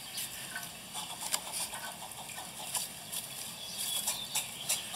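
Steady electronic hiss from a security camera's microphone. Faint irregular clicks and ticks are scattered through it.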